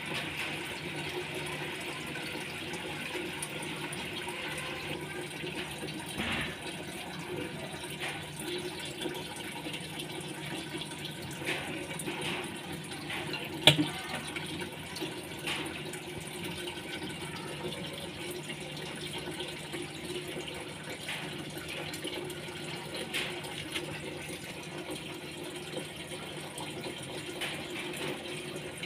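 Aquarium filter running: steady trickling and bubbling water over a low hum. About halfway through there is one sharp splash as a Channa lucius snakehead breaks the surface.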